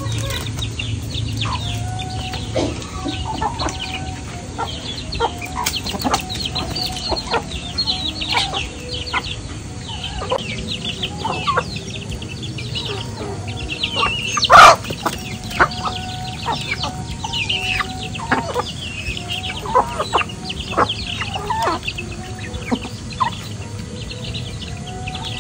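Free-range chickens, a rooster and hens, clucking as they forage, with many short high chirps throughout. One loud, sharp sound about halfway through stands out above the rest.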